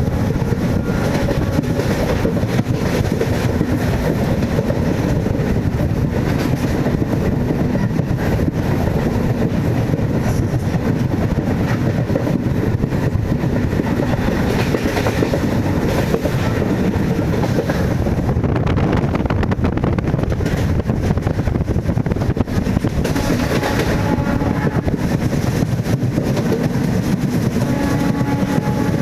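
MEMU electric multiple-unit train running along the track: a steady loud rumble with many rail clicks throughout.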